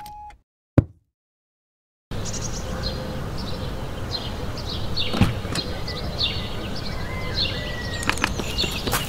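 One sharp click, then a second of silence, then outdoor ambience cuts in: small birds chirping repeatedly over a steady low rumble, with a single thump about halfway through and a few light clicks near the end.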